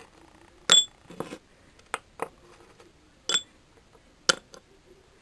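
Homemade hard candies dropped one at a time into a storage container, each landing with a sharp clink, about seven in all, a few with a short high ring.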